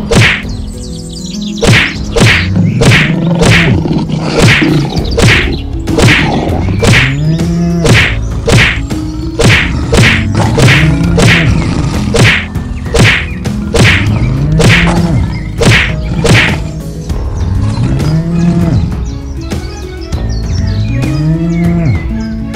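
Cartoon fight sound effects: repeated hard whacks, a little more than one a second and fainter over the last few seconds, mixed with a cow mooing again and again, each moo a low call that rises in pitch.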